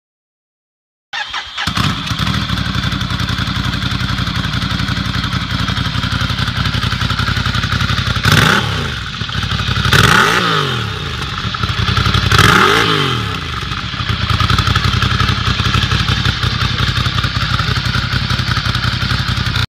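Ducati Scrambler's air-cooled L-twin idling through an SC Project full-system exhaust, coming in suddenly about a second in. In the middle it is revved three times, each blip climbing and dropping back to idle, the second and third a bit longer than the first.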